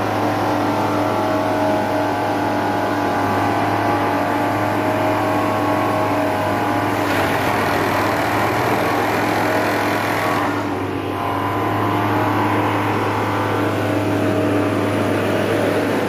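Railway track tamping machine running with a steady engine drone. About seven seconds in a harsher, noisier sound joins for some three seconds, then the level dips briefly before the drone carries on.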